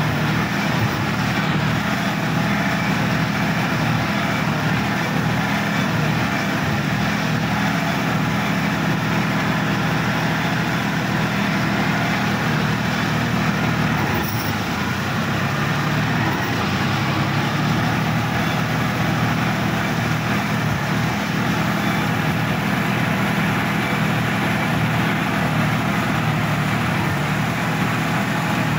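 Sonalika tractor's diesel engine running steadily, heard close up from the driver's seat as the tractor drives through wet paddy-field mud.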